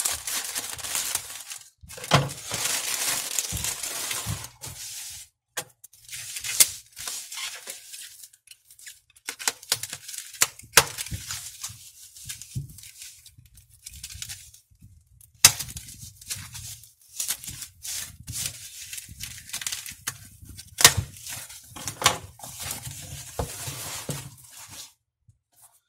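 Plastic packaging being cut open, torn and crinkled by hand: a plastic mailer bag snipped with scissors, then the wrapping around a box slit with a utility knife. Irregular rustling with brief pauses and several sharp clicks.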